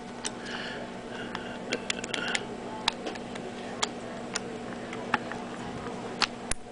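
About a dozen light, irregular clicks and taps from handling the Samsung S730 compact digital camera's small plastic parts during reassembly, over a steady low hum.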